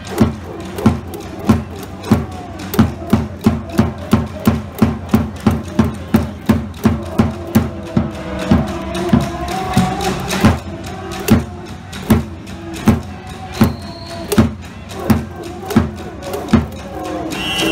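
A cheering-section drum beaten in a steady, insistent rhythm of about two to three deep beats a second, with crowd voices wavering underneath.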